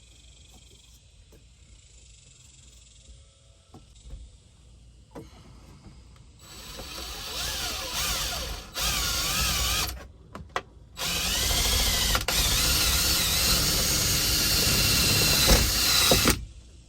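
Cordless drill driving self-tapping screws through a wooden furring strip into the van's sheet-metal body: two loud runs, the motor's pitch wavering under load, the second longer and stopping abruptly near the end. A few light handling clicks come before the first run.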